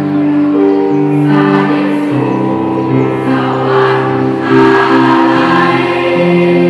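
School choir singing a song in several-part harmony, the voices holding long, steady notes and moving from chord to chord.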